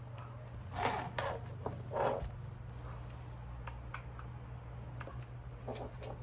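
Scattered soft clicks and a few louder short rustles and knocks of objects handled on a desk, over a steady low hum.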